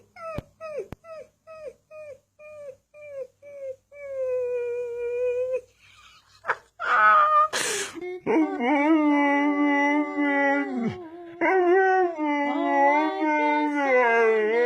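Husky puppy whining to be let out of the kennel it cannot get out of: a fading run of short falling whimpers, about three a second, then one longer steady whine. After a brief sharp noisy burst about halfway through, it breaks into a loud, long, wavering howl-like whine that rises and falls in pitch.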